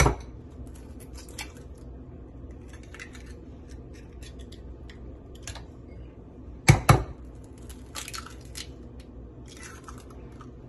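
Eggs being cracked against the rim of a bowl: a sharp knock at the start and two quick knocks a little before seven seconds in, with light handling clicks and rustles between.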